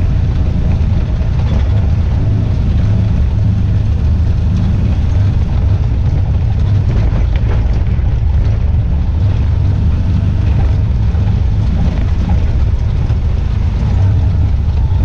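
Steady engine drone and tyre rumble heard from inside the cab of a side-by-side utility vehicle driving along a gravel track, with scattered small rattles and knocks.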